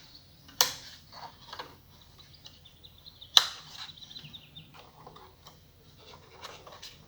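Small parts being handled inside a computer: scattered light taps and ticks, with two sharp clicks about half a second in and again about three and a half seconds in.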